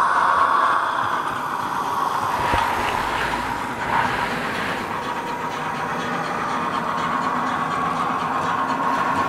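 H0-scale model train running on the layout track: a steady electric-motor whine over rolling wheel noise. A single sharp click comes about four seconds in.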